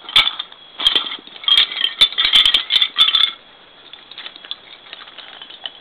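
Wooden Lincoln Logs toy pieces clattering and tumbling as a dog knocks a log house apart: a run of rattling knocks for about three seconds, then only faint clicks as loose pieces are nudged.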